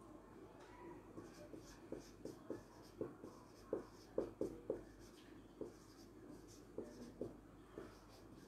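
Marker pen writing on a whiteboard: a faint run of short, separate strokes, thickest and loudest through the middle.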